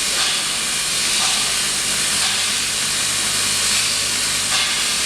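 Welding arcs on an automatic circumferential tank-welding machine, hissing and crackling steadily over a low electrical hum from the machine.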